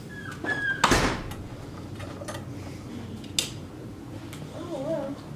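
Hotel room door being unlocked and opened: a short electronic beep from the lock, a loud clunk of the handle and latch about a second in, and a sharp click a couple of seconds later.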